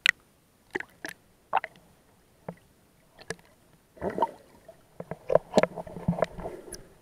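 Sea water splashing and gurgling around a camera at the surface as it dips under: scattered sharp splashes and clicks at first, then denser bubbling gurgles from about four seconds in.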